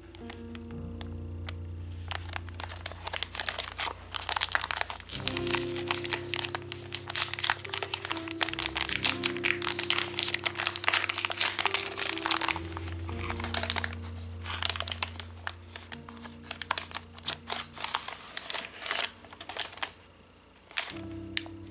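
Crinkling and crackling of a clear plastic craft-kit bag being handled and opened by hand. It starts about two seconds in, is densest in the middle and thins out near the end, over soft background music with long held notes.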